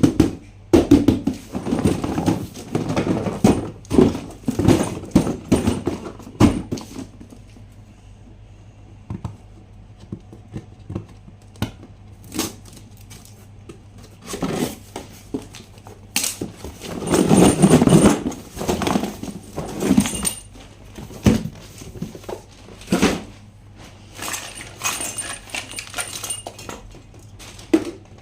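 Toys and packaging being handled: irregular clicks, knocks and clatter of plastic, in two busier stretches, one near the start and another in the middle.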